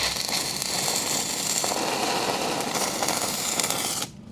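Pipe welding arc burning steadily for about four seconds, then cutting off abruptly. The welder is pushing the bead back through a weak high-low tie-in with the machine's current turned up a little.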